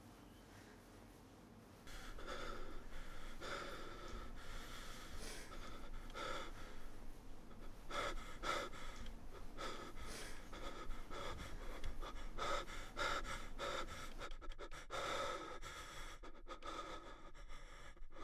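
A person panting: quick, heavy breaths in and out, repeating over and over, starting about two seconds in.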